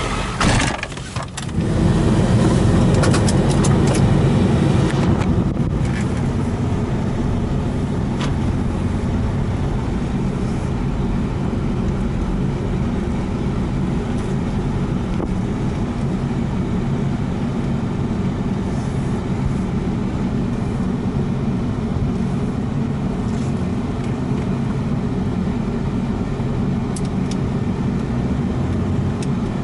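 Ford F250's 7.3-litre turbo-diesel V8 heard from inside the cab while driving. After a brief break about a second in, it pulls louder for a few seconds, then runs steadily.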